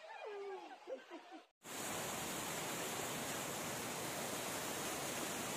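Floodwater rushing across a road in a strong torrent: a steady, even rush of water that starts suddenly about a second and a half in. Before it, brief voices cut off abruptly.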